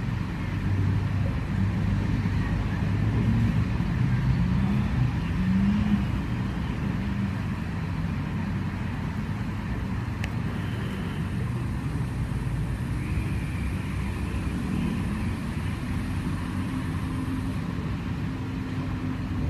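Road traffic noise: a steady low rumble of passing cars, with one vehicle's engine loudest and rising in pitch about four to six seconds in.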